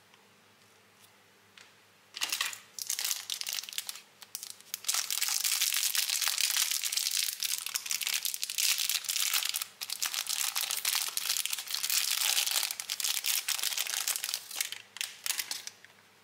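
Clear plastic wrapper crinkling as hands unwrap a marshmallow, starting about two seconds in and going on, with brief pauses, until just before the end.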